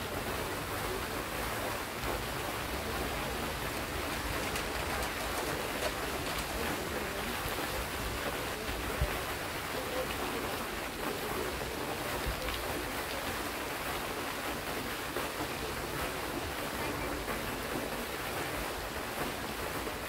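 Pond fountain jets spraying up and splashing back onto the water: a steady rushing, splashing hiss.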